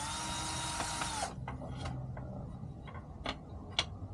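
Power drill driving a screw into wood: the motor spins up, runs for about a second and winds down, followed by several sharp clicks and knocks.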